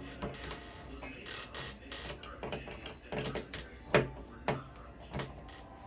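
Irregular mechanical clicks and knocks of door-lock hardware being handled and fitted together, the loudest about four seconds in.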